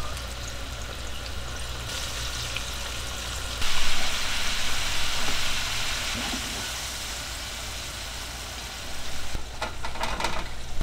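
Chicken karaage deep-frying in a pan of hot oil: steady sizzling of the bubbling oil, louder a few seconds in. Near the end, a few sharp knocks and rattles as a wire spider strainer lifts the fried pieces out onto a wire rack.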